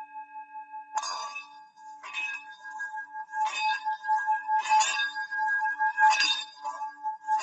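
Metal Bali singing bowl tuned to D ringing with a slightly wavering hum, struck five times at a steady pace of roughly one strike every second and a quarter, starting about a second in, each strike bringing a bright clang over the sustained tone.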